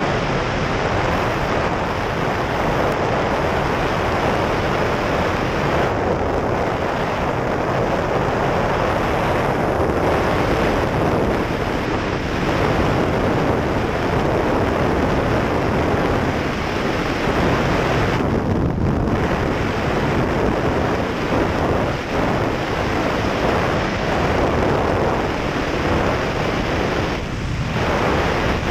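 Loud, steady wind rush on a camera mounted outside on the wing strut of an Ikarus C42 microlight in flight, with the engine and propeller running underneath.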